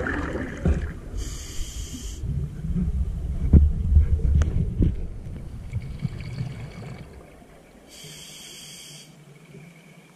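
Scuba diver breathing underwater through a regulator: a hiss of about a second as breath is drawn in, then a long low rumble of exhaled bubbles. A second drawn breath hisses near the end.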